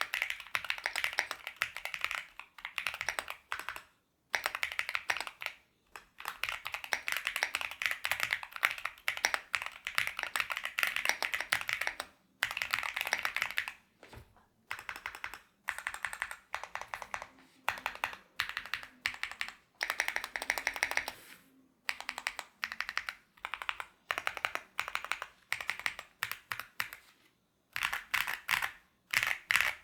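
Typing on a High65 V2 gasket-mount 65% keyboard with stock Gateron Baby Kangaroo tactile switches, a PC plate, full foam and PBT Cherry-profile keycaps. Fast runs of keystrokes are broken by short pauses, with slower, separate presses near the end.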